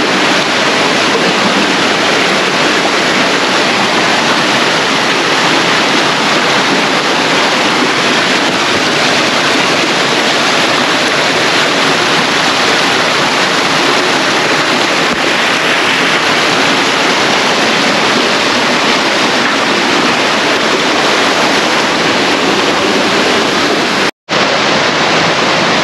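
Waterfall rushing loudly and steadily, a dense even roar of falling water, with a momentary dropout near the end.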